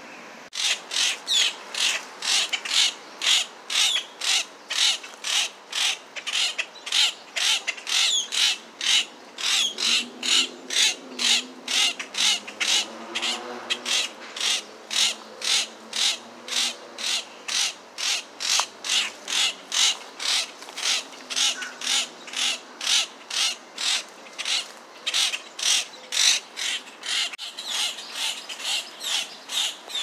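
Grackle giving short, sharp calls over and over, about two to three a second, in a steady insistent series.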